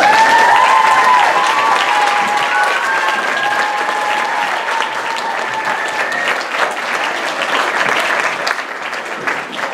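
Audience applauding, a dense clatter of many hands clapping that starts suddenly. For the first six seconds or so there are high, held cheering voices over the clapping.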